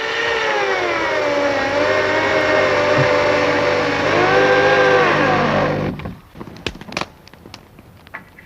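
A motor-driven woodworking machine runs loud, its pitch sagging and recovering several times as if under load from cutting. It stops abruptly about six seconds in, followed by a few light knocks and clicks.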